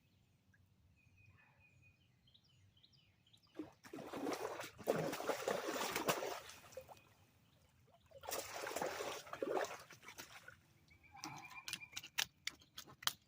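Water splashing and trickling in two bursts of a few seconds each, after faint bird chirps. A run of sharp clicks and rattles follows near the end.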